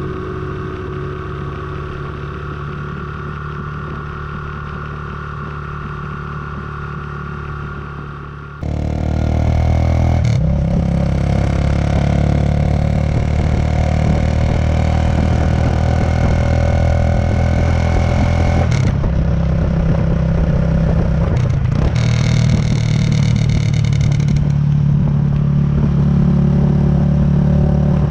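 Kawasaki Estrella's single-cylinder motorcycle engine running steadily while riding. The engine sound jumps louder about a third of the way in and shifts abruptly a couple more times as the footage changes.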